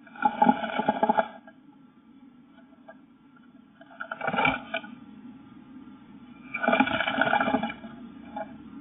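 A great tit's claws scrabbling on the wooden floor of a nest box and its wings brushing the walls as it hops and turns. There are three scratchy bursts of about a second each: one near the start, one about four seconds in and one about seven seconds in, over a steady low hum.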